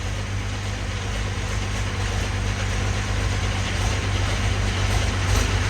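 Limited Pro Stock pulling tractor's diesel engine idling with a steady low rumble, just started in freezing cold.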